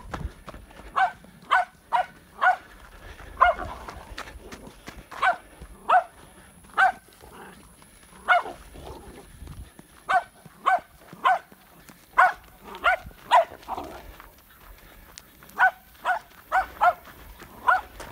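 Seven-month-old Patterdale Terrier puppy baying a wild boar: sharp barks repeated in quick runs of several, with short pauses between runs.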